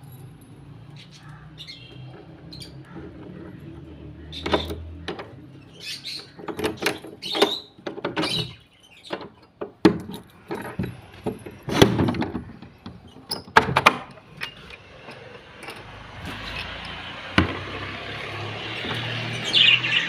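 A padlock being unlocked and worked off the iron hasp and sliding bolt of an old wooden door: a string of sharp metal clicks, clanks and key rattles. Small cage birds chirp faintly.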